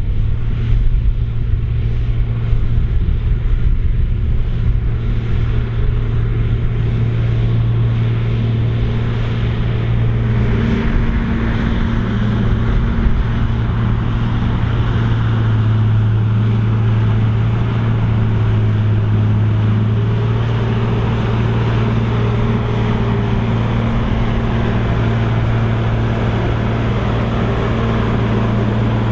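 Krone BigX 700 self-propelled forage harvester running at full power in corn, its large diesel engine making a loud, steady deep drone that dips slightly in pitch about halfway through as it takes load.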